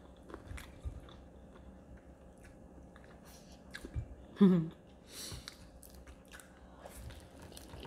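Close-up chewing and biting of crispy fried chicken, with scattered crisp crunches and mouth sounds. About halfway through comes a short hum of a voice, the loudest moment.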